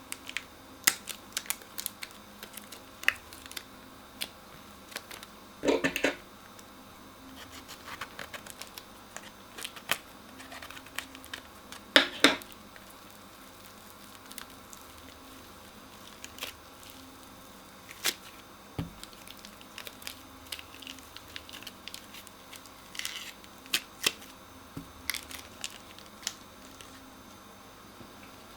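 Crunchy slime and plastic piping bags being squeezed and handled: scattered crackles, clicks and crinkles, with louder crunches about six and twelve seconds in.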